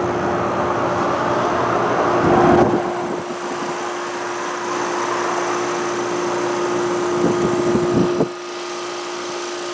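Outdoor unit of a 2016 Ruud Achiever heat pump running in heating mode with its coil heavily frosted over: a steady fan whoosh over a constant compressor hum. There are two brief louder low rumbles, about two seconds in and again around seven to eight seconds in.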